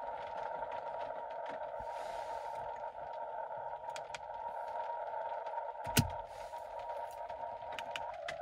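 Xiegu X6100 HF transceiver's receiver hiss: band noise squeezed into a narrow CW filter passband, heard as a steady filtered rush. A single sharp click comes about six seconds in, and the hiss narrows slightly near the end.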